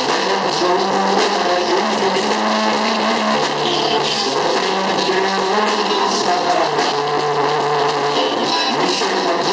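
Live band music with plucked string instruments prominent, playing steadily without a break.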